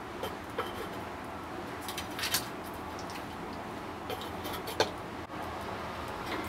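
A few scattered soft clicks and taps, the sharpest nearly five seconds in, as a bearded dragon bites at chopped strawberry in its food dish with metal feeding tongs held against the dish. A steady background hiss runs underneath.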